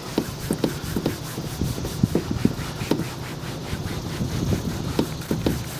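A cloth rubbed in quick, uneven strokes over the grainy black plastic bumper of a Honda CR-V, wiping off the excess acrylic polish.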